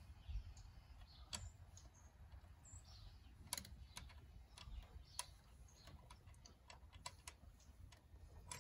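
Near silence with faint, scattered clicks and ticks.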